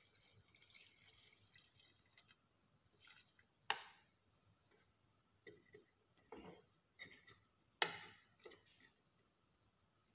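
Water poured from a plastic container into a metal pot of chopped potatoes and sausage, splashing for about two seconds. Then a wooden spoon stirs the pot, with a few sharp knocks against its side, the loudest near four and eight seconds in.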